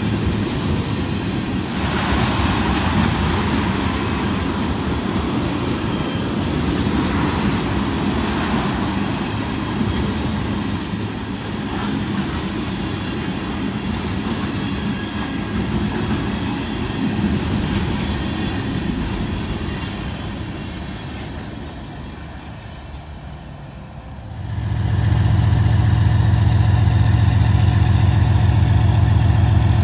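Tank cars of a freight train rolling past on the rails, a steady rumble that grows quieter toward the end of the train. About 24 seconds in, after a cut, a diesel locomotive's engine comes in loud and steady with a low hum as it approaches.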